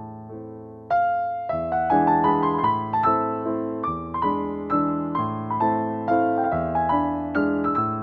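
Background piano music: a gentle melody of struck notes that die away over lower chords, stepping up in loudness about a second in.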